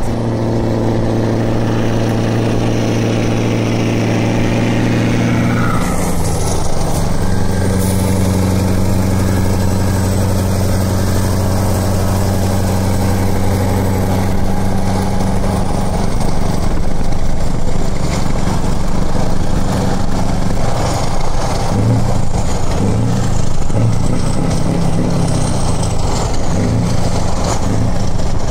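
A Scania R500 V8 truck running at motorway speed through an open exhaust pipe, a steady deep engine note with road noise. The note breaks briefly about six seconds in and wavers in pulses near the end.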